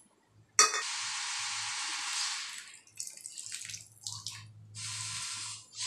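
Tamarind juice poured in a thin stream into a pan of simmering curry: a splashing pour that starts suddenly and runs about two seconds, then, after a few scattered splashes, a second, shorter pour near the end.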